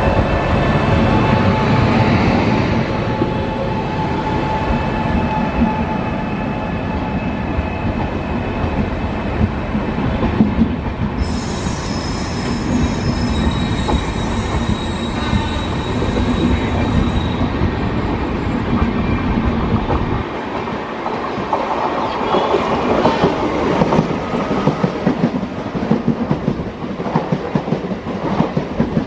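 Empty passenger coaches hauled by a WAP-7 electric locomotive rolling past in a shunting move. The wheels squeal in high steady tones, most strongly for several seconds in the middle. The wheels clack over rail joints more often near the end.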